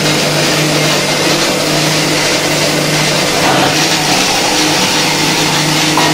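A steady machine hum with a constant hiss over it, even and unbroken throughout.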